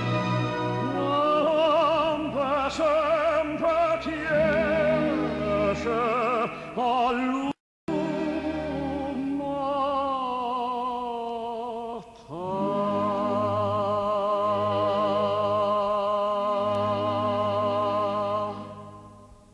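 Operatic solo singing with heavy vibrato over a steady accompaniment. It breaks off for a moment about seven and a half seconds in, then ends on a long held note that fades out near the end.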